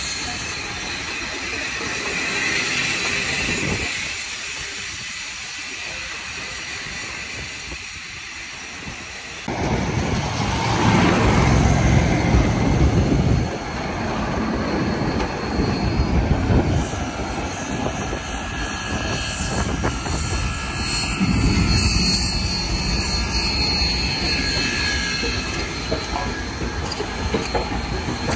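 Union Pacific Big Boy 4014 and 2-10-2 No. 5511 steam locomotives rolling slowly past at close range, with steam hissing and their wheels and running gear working on the rail. The sound changes abruptly about ten seconds in and gets louder and heavier in the bass.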